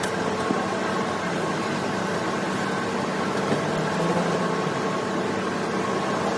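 Mattress-making machinery running steadily: an even mechanical hum with a few held tones and no distinct strokes.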